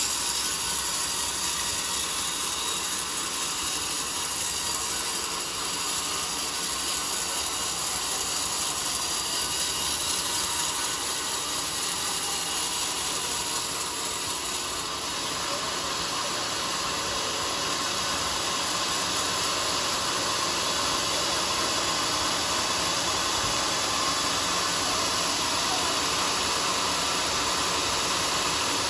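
Sawmill saw cutting through a teak log: a steady, unchanging mechanical noise.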